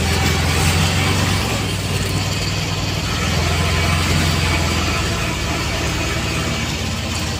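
Engine of a moving road vehicle running steadily with a low hum, heard from on board along with road and wind noise.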